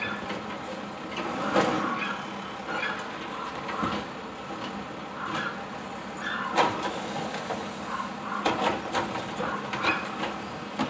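Mack automated side-loader garbage truck running while its hydraulic arm lifts a wheeled trash cart and tips it into the hopper, with several sharp knocks and clanks of the cart and arm.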